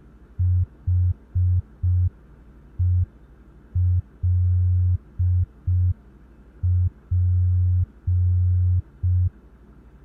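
A low electronic tone beeping on and off in short and long pulses, keyed like Morse code: four shorts, one short, short-long-short-short, short-long-long-short, which spells H-E-L-P.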